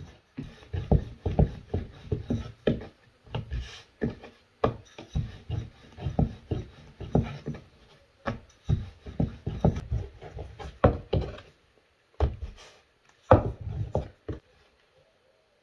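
Wooden rolling pin rolling out dough on a floured wooden board: a run of irregular knocks and rumbles as the pin is pushed back and forth, with short pauses between rounds of dough, stopping near the end.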